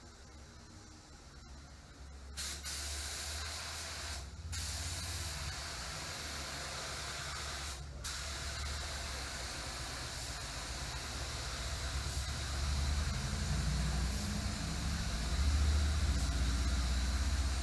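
Pneumatic paint spray gun hissing steadily as it sprays, starting about two seconds in and breaking off briefly twice, over a low rumble that grows louder toward the end.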